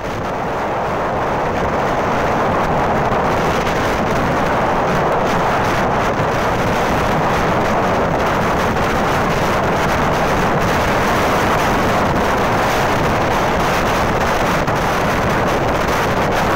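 Steady rush of wind on the microphone mixed with road and engine noise from a vehicle travelling at speed.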